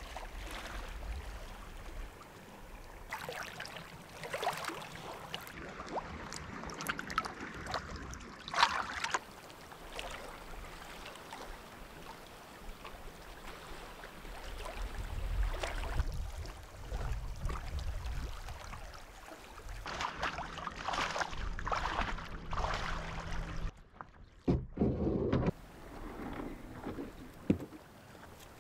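Sea kayak being paddled: the paddle blades splash in the water in irregular strokes, with wind rumbling on the microphone at times.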